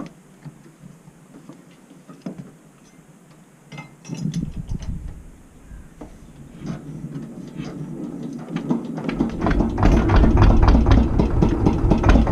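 A small motorboat's engine starts about eight seconds in and runs with a fast, even knocking beat, growing louder. Before that, a few faint clicks and knocks.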